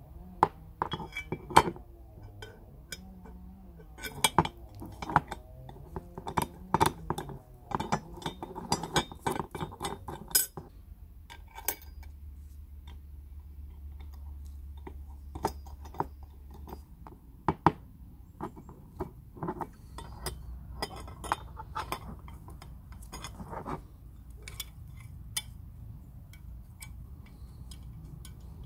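Small brass and nickel-plated metal parts of an antique curling iron clicking and clinking against each other as they are handled and fitted together. Many sharp taps come close together in the first ten seconds, then fewer and more spread out.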